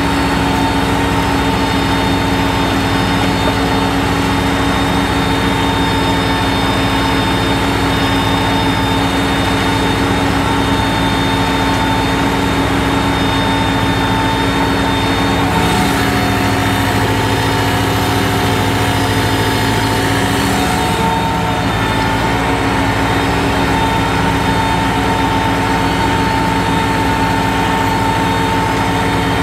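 New Holland 7610 tractor's diesel engine pulling steadily under load as it draws a four-disc plough through dry soil. It is a loud, constant drone with a steady high whine above it.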